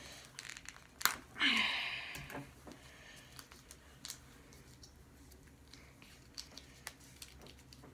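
Hands working cardboard and electrical tape: a sharp click about a second in, a short louder scratchy sound just after, then faint scattered clicks and rustles.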